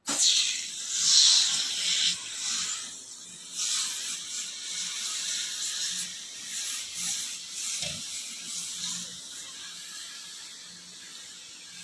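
Aerosol can of foaming multipurpose kitchen cleaner spraying in uneven hisses as the foam goes onto a stove top. The hiss is strongest in the first few seconds and softer toward the end.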